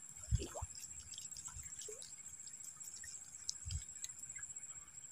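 Faint splashing and dripping water as a hooked climbing perch (betok) is reeled in at the surface, with soft low thumps just after the start and again about three and a half seconds in.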